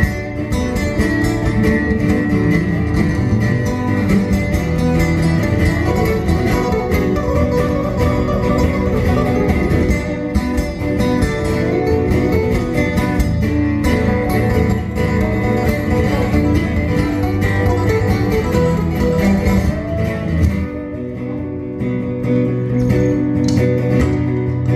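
Acoustic guitar playing an instrumental passage of busy picked notes; about twenty seconds in it thins out to a sparser stretch of ringing, held notes.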